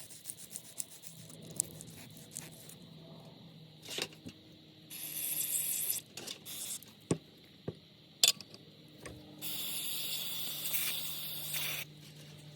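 Two bursts of spray hissing, the first about five seconds in and a longer one from about nine and a half seconds, as carburetor parts are cleaned. Small clicks and knocks from the parts being handled come in between.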